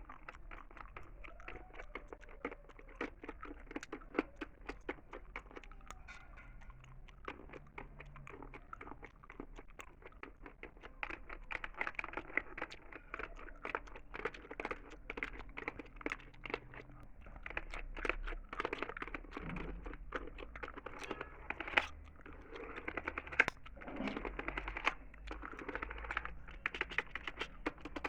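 Close-miked gum chewing: a dense run of irregular small clicks and smacks, growing busier and louder about ten seconds in.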